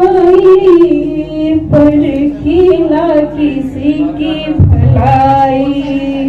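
A woman singing solo into a handheld microphone, holding long notes that bend and waver in pitch, with short breaks between phrases.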